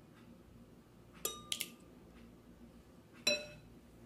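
Metal spoon clinking against glass while scooping jelly: two quick clinks a little over a second in, the first leaving a short ringing tone, and one more about three seconds in.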